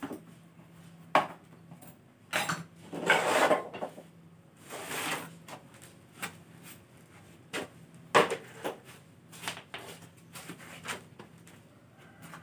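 Hard pieces handled and knocked together: a few sharp knocks and clicks, with two short scraping or rubbing passes about two and a half and five seconds in. No power tool is running.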